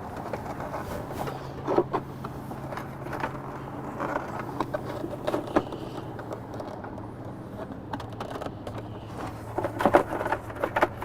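Plastic intake parts scraping, knocking and clicking as the factory air scoop is pushed into the inlet of an aftermarket intake box, with a cluster of louder knocks near the end, over a steady low hum.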